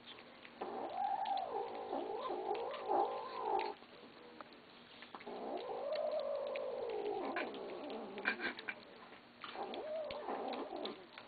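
Kittens growling at each other over a shared food dish while they eat, guarding their food: three long, wavering low yowls with short gaps between them.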